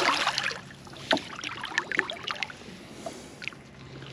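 Water splashing and crackling at the side of a small boat, with scattered small clicks and knocks, loudest right at the start, as a released fish goes back into the water.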